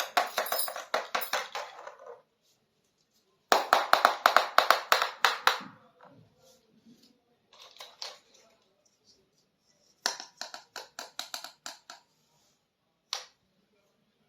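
Small plastic miniature toy kitchen pieces being handled, clicking and clattering in quick bursts of rapid taps, with short silent gaps between the bursts.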